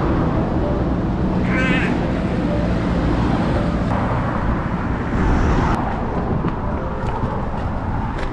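Road traffic: cars driving past close by on an asphalt street, a steady rumble and tyre noise. About two seconds in, a brief high warbling sound cuts through.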